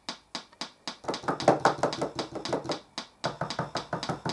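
A TPA3122D2 Class D amplifier kit motorboating through a speaker: a steady clicking about four times a second. The clicking swells louder and fuller for about two seconds in the middle, then drops back. It is a sign that the amplifier is failing to start after being power-cycled, which the owner puts down to the chip going into overheat shutdown or a dodgy replacement IC.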